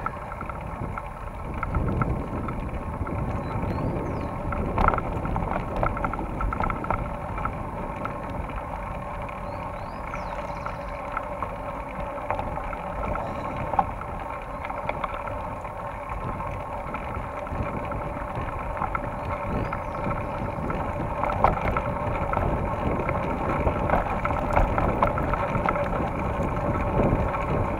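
Rumble and rattle of a mountain bike riding over grass and a dirt trail, picked up by a camera mounted on the moving rider, with wind buffeting the microphone and frequent small knocks from bumps in the ground.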